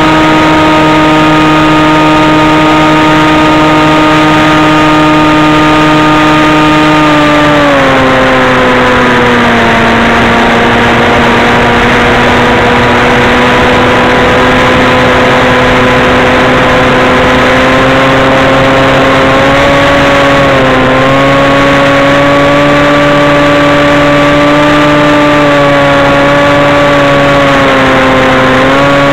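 Model flying wing's motor and propeller heard from on board: a loud, steady whine over rushing air. The whine drops in pitch about eight seconds in, then slowly climbs again, with a brief dip about two-thirds of the way through and another near the end.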